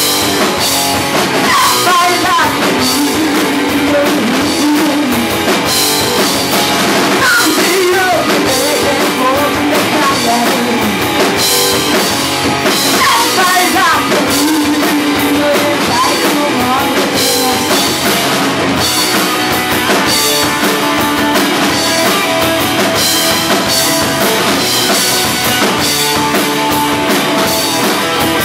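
Live rock band playing loud and steady: electric guitars through Marshall amplifiers and a drum kit with regular cymbal hits, with a voice singing.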